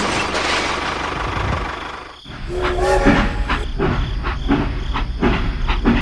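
Toy steam locomotive running on plastic track: a steady hissing rumble, then after a brief drop about two seconds in, a short tone and a run of sharp clicks about twice a second.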